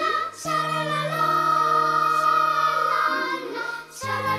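A song with singing voices over held accompaniment chords. The chord changes about half a second in and again near the end.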